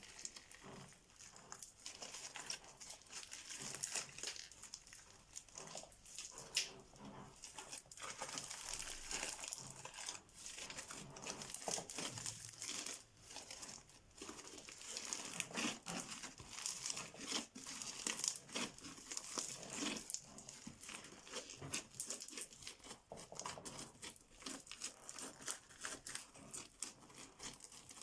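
Crunchy, sticky slime being worked by hand, giving a dense, uneven run of crackles, clicks and small pops.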